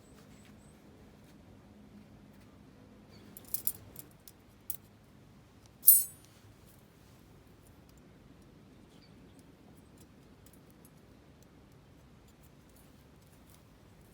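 Metal parts clicking and clinking as they are handled: a few light clicks about three and a half seconds in, then one sharp, ringing metallic clink about two seconds later.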